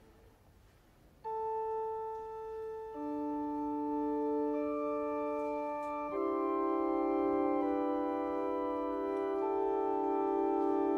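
Organ playing slow held notes: a single sustained note enters about a second in, further notes join, and from about six seconds it holds full chords.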